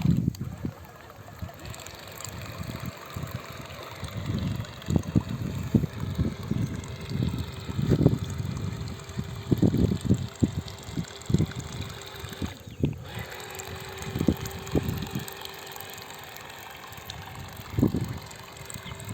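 Water splashing and trickling as a homemade twin-gear-motor RC boat runs on the water, with a faint motor whine that dips and rises in pitch.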